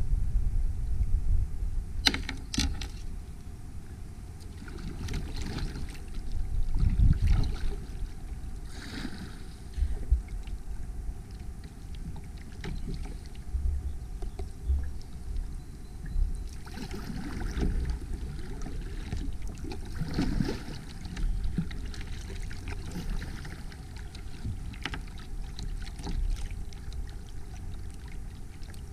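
Water sloshing and splashing around a fishing kayak, in irregular swells, over a steady low rumble. A couple of sharp knocks come against the boat, one about two seconds in and one about ten seconds in.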